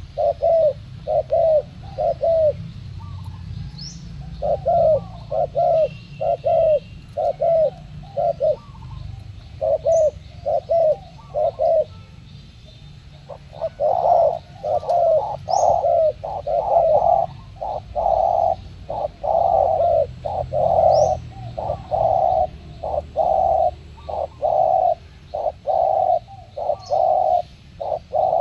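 Two spotted doves cooing against each other in a contest: runs of short, repeated coos with brief pauses, becoming dense and almost unbroken from about halfway through.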